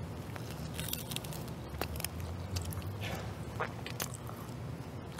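Quiet chewing of food, with a few small clicks and crackles over a low steady hum.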